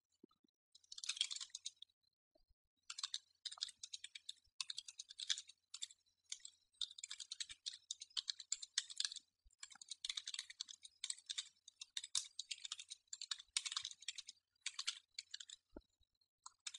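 Faint, fast typing on a computer keyboard: quick runs of keystrokes with short pauses between them, stopping a little before the end.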